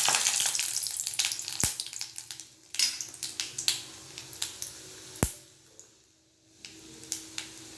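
Mustard seeds and urad dal frying in hot oil in a kadai: a sizzle that dies down over the first two or three seconds, with a few sharp pops.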